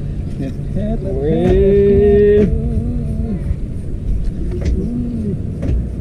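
A boat engine running steadily at sea, with a loud, long held vocal shout over it about a second in and a short hum near the end.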